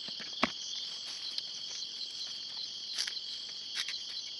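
Steady high-pitched chorus of night insects, with one sharp click about half a second in and a few faint rustles as leafy greens are handled.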